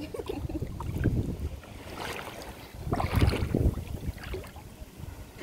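Shallow seawater sloshing and splashing around legs wading through it, in uneven surges that are loudest a little past the middle, with wind buffeting the microphone.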